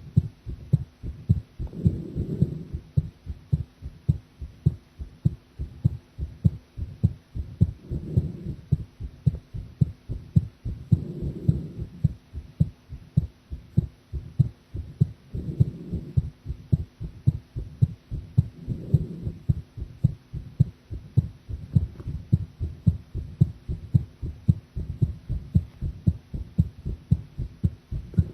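A woman's heartbeat heard close up, a regular train of low lub-dub thumps. A softer rushing sound swells up under the beats every three to four seconds.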